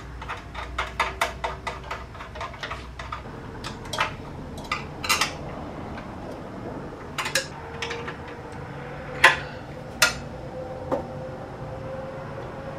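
Light metallic clicking and clinking from hand work on a small engine as parts are fitted around the carburetor: a quick run of small clicks for about three seconds, then a handful of separate, sharper clinks.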